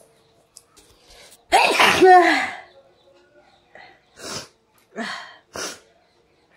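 A woman sneezes once, loudly, about a second and a half in, a sneeze brought on by tickling the inside of her nose with a twisted handkerchief corner. Three shorter, quieter breaths follow.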